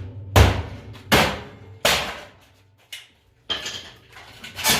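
Hammer blows on the metal body of a broken Kitchen Master 3-in-1 oven: three sharp strikes in quick succession, then a short rattle and one more strike near the end.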